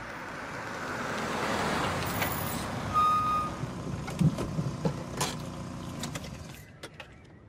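A small car drives up and pulls to a stop, its road noise swelling and then easing. A short, steady high tone sounds about three seconds in, followed by several sharp clicks and knocks before the sound fades.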